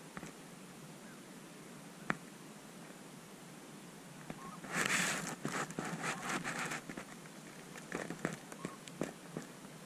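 Close rustling and crinkling of dry stalks and blind material against the microphone as the hunter shifts inside a layout blind. A single click about two seconds in, a dense burst about halfway through, then scattered clicks.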